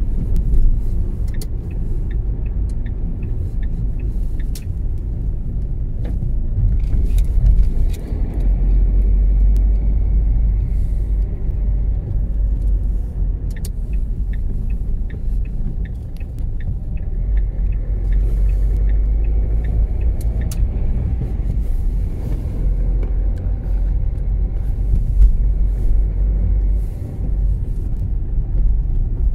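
Car cabin noise while driving slowly: a steady low rumble from the engine and tyres on the road, with scattered light clicks.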